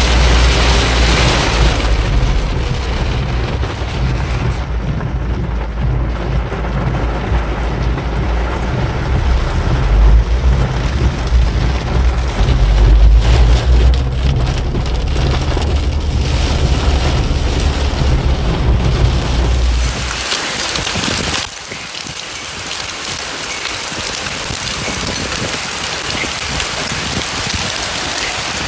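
Heavy rain pelting a moving car's windscreen and roof, over a deep rumble from the car on the road. About 20 seconds in it switches abruptly to a brighter hiss of a heavy downpour falling on a street.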